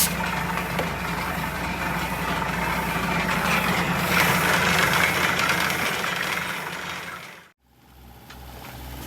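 An engine running steadily with a rattle, cutting off abruptly about seven and a half seconds in; after that comes a different low throb that pulses a couple of times a second.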